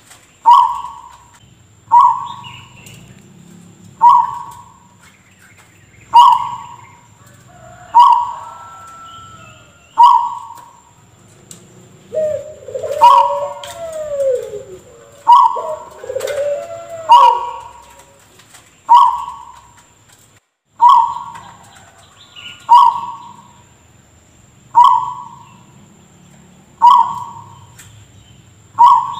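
Zebra dove (perkutut) giving short, sharp, cough-like calls about every two seconds; each call starts suddenly and fades quickly. In the middle, lower down-sliding calls from other birds join in.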